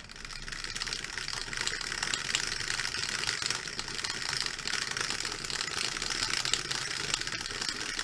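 Dice rattling inside the clear plastic dome of an electric dice shaker, a fast, steady clatter throughout.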